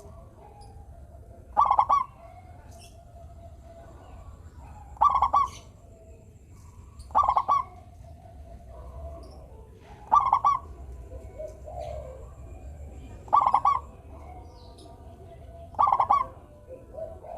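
Zebra dove (perkutut) singing. It gives a short burst of rapid staccato cooing notes six times, a few seconds apart.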